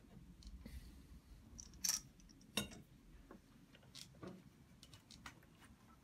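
Steel F-clamp being fitted and tightened onto an aluminium plate on a wooden bench: a few scattered sharp metallic clicks and clinks, the two loudest about two and two and a half seconds in.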